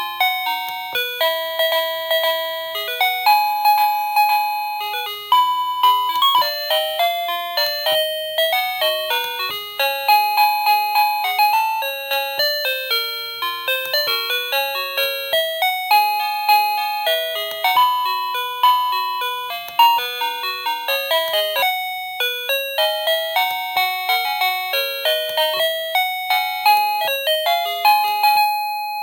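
TECKNET wireless doorbell's plug-in chime unit playing its electronic melody tunes, a steady run of short notes, each ringing and fading, moving up and down like a simple tune.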